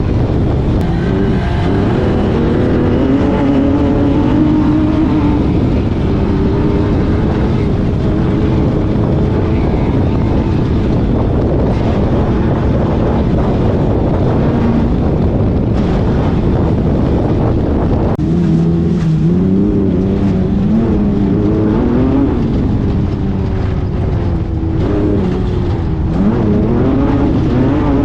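Off-road race car's engine heard from inside the car, pulling hard with its pitch climbing and falling as the driver works the throttle and gears, over loud steady rushing noise. The note climbs in steps from about two-thirds of the way through and rises again near the end.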